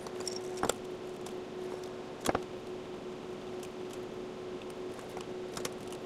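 Steady room hum with a faint constant tone. Two sharp clicks sound about a second and a half apart, followed by a few lighter ticks.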